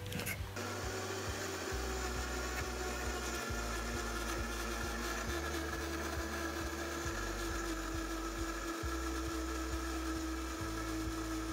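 Countertop blender starting up and running steadily, grinding ginger, garlic and green chillies into a wet green paste.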